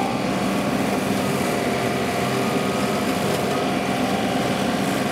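John Deere 2038R compact tractor's three-cylinder diesel running steadily at working speed while driving the loader-mounted hydraulic rotary mower as it cuts grass, a constant even drone.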